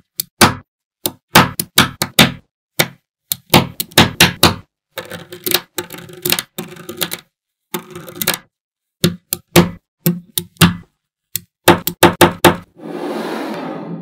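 Small magnetic balls snapping onto a block of magnets: quick clusters of sharp clicks and clacks as rows are pressed into place, with a denser clatter of many balls lasting about a second near the end.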